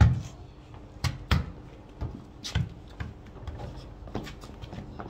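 Irregular thuds of a football being kicked and trainers stepping and scuffing on hard ground close by, about eight knocks, the loudest right at the start.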